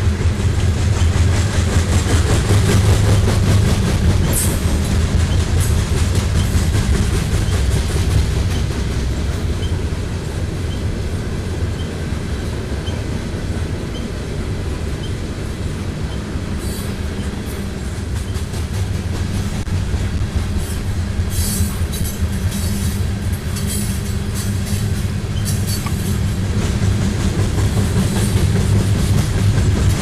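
CSX freight train's coal hopper cars rolling past close by: a steady rumble of steel wheels on the rails, with sharper clickety-clack over the rail joints in the second half.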